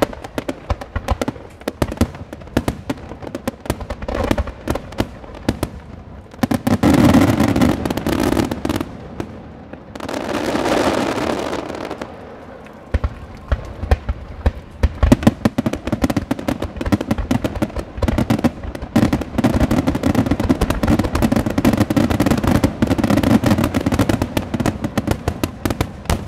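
Starmine fireworks barrage: rapid, irregular bangs and crackling from shells and fountains, thickening into dense continuous crackle in several stretches, the longest near the end.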